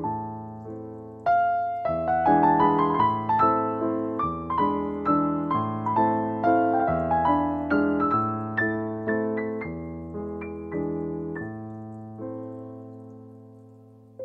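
Background music on solo piano: a gentle, flowing line of single notes over held bass notes, the last chord dying away near the end.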